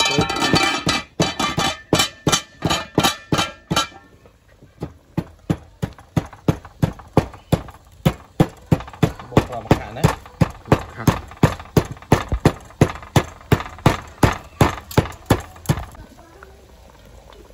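Wooden pestle pounding red seeds in a wooden mortar: steady thuds, about two to three a second, that stop about 16 s in. A woman's voice talks over the first few seconds.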